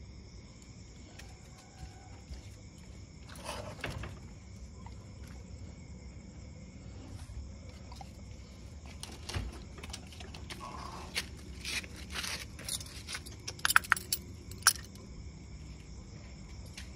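Steady chirping of a night-time cricket chorus. It is broken by a few sharp clicks and knocks, which come loudest in a cluster about two-thirds of the way through.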